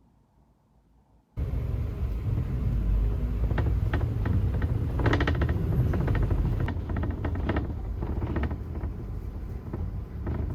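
A steady low rumble with scattered clicks, starting abruptly about a second and a half in after near silence.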